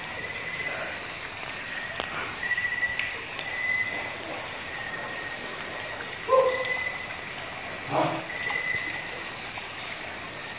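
Night chorus of insects and frogs: a steady high trill with shorter, slightly lower calls coming and going, over the faint wash of river water. Two short louder sounds stand out about six and eight seconds in.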